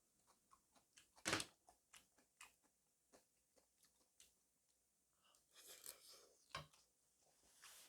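Quiet close-miked eating sounds: soft chewing with scattered small clicks, a short louder burst about a second in, and another cluster of noisy sounds with a sharp knock near the end.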